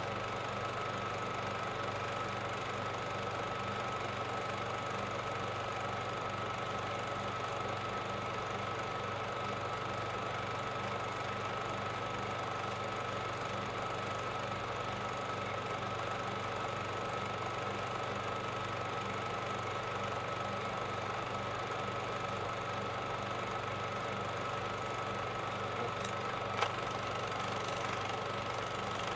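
Steady, unchanging hum and hiss with a constant high whine on the soundtrack of an old silent film transfer. A single short click comes near the end.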